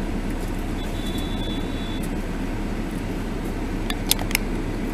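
Steady low rumble of a car running, heard from inside the cabin of the stationary dashcam car. A brief thin high beep sounds about a second in, and a few sharp clicks come near the end.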